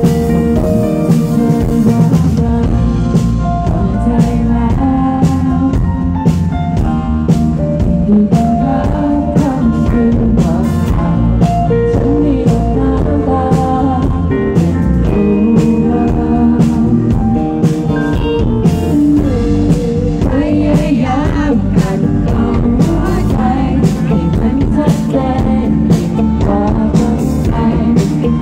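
Live band playing: a woman singing into a microphone over acoustic guitar, electric bass and drums, with a steady beat.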